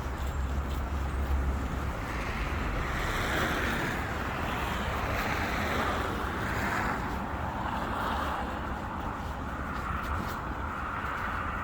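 City road traffic: cars passing one after another, their tyre and engine noise swelling and fading, over a low rumble of wind on the microphone that is heaviest at the start.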